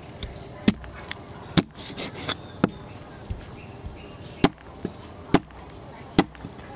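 A large kitchen knife chopping a baby shark into steaks on a wooden chopping board, each stroke a sharp knock of the blade through the flesh onto the wood. About nine chops at an uneven pace.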